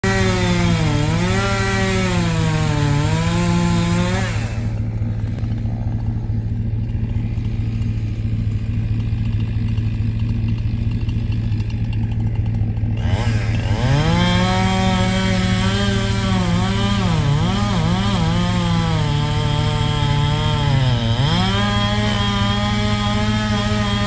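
Chainsaw cutting into a pine trunk, its engine pitch dipping and recovering again and again as the bar bogs under load in the cut. For several seconds in the middle the sound goes duller.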